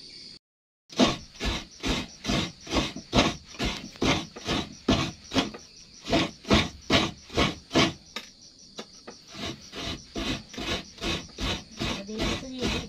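Coconut being grated by hand: a half coconut scraped against a grater in quick, even rasping strokes, about two to three a second, starting about a second in.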